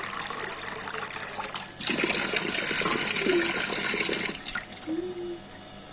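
Water running and splashing, broken off briefly about two seconds in, then loud again before dropping away near the end.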